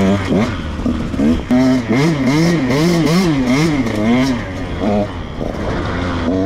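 Dirt bike engine revving up and down repeatedly, its pitch rising and falling about twice a second, then running steadier near the end.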